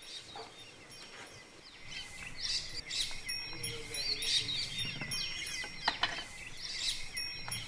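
Small birds chirping and twittering, many short calls overlapping, over a steady thin high tone, with a short sharp knock about six seconds in.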